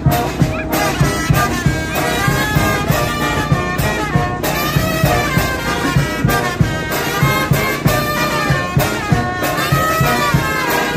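Brass-led music with a steady beat, melodic horn lines running throughout.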